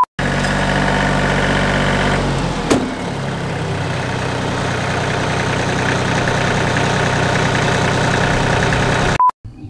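Massey Ferguson compact tractor's diesel engine running steadily; its note changes about two seconds in, with a sharp click just after. A short test-tone beep sounds at the start and again near the end.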